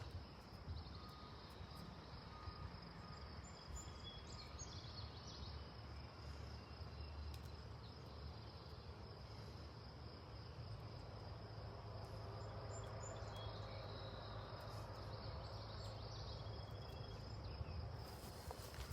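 Insects trilling steadily on one high, continuous note over a low rumble.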